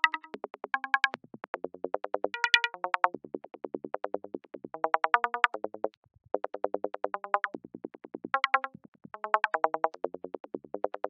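VCV Rack software modular synthesizer playing a fast sequence of short pitched blips, about eight to ten a second, jumping between notes in short phrases with brief pauses: a chirpy forest psytrance sound effect.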